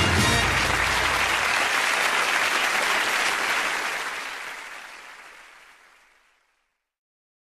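Studio audience applauding, with a last low held note of the theme music dying away under it in the first second or so. The applause fades out over a couple of seconds near the end.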